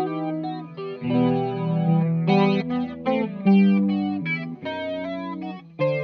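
Electric guitar, a Gibson Firebird VII, played through a Subdecay Starlight Flanger pedal into an Orange AD30 amp. It plays a run of chords and notes that change every half second or so, coloured by the flanger, with the strongest strike about three and a half seconds in.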